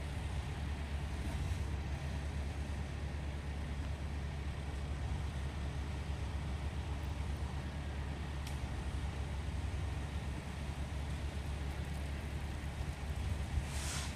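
Steady low rumble with no clear rise or fall, and a brief hiss near the end.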